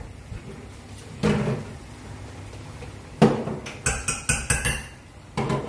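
Metal kitchenware clattering: a knock about a second in, another at about three seconds, then a quick run of about five sharp clinks and one more near the end.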